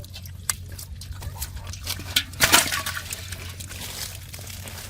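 Shallow water sloshing and splashing in irregular bursts as hands grope through it for fish, loudest about two and a half seconds in.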